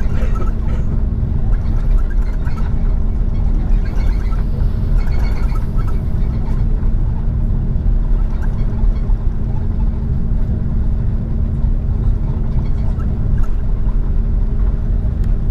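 Airbus A330 cabin noise during taxi: a steady, loud rumble from the engines and rolling wheels, with a constant hum underneath.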